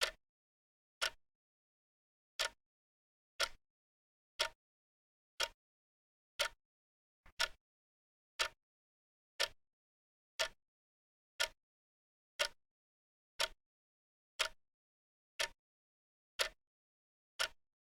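Wristwatch ticking, one sharp tick about every second, with dead silence between ticks.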